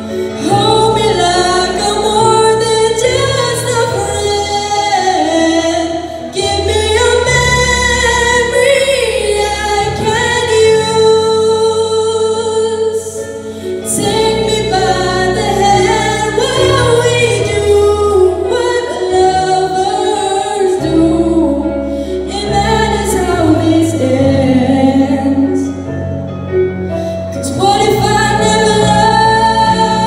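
A solo singer singing a melody into a microphone over musical accompaniment with a bass line.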